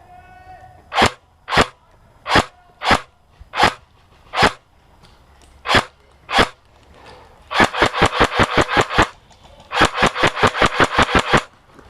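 Airsoft gun firing: about eight single shots spaced roughly half a second to a second apart, then two rapid bursts of about ten shots each, around seven shots a second.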